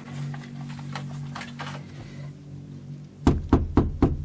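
A fist knocking on a panelled interior door: about five quick, loud raps near the end.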